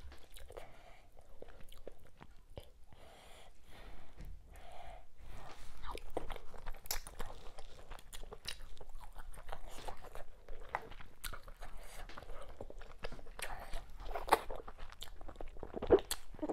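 Close-miked eating sounds from a person eating fufu with okra soup by hand: wet chewing and lip smacks, with a sharper smack near the end as fingers go to the mouth.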